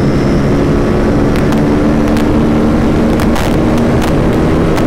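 Aprilia RS457's parallel-twin engine running at a steady cruising speed on its stock exhaust, under heavy wind rush on the microphone with a few brief buffets.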